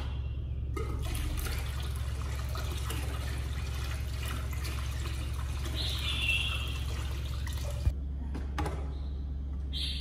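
Tap water running from a hose into a plastic basin while hands swish and splash in it, a steady rushing that stops with a click about eight seconds in.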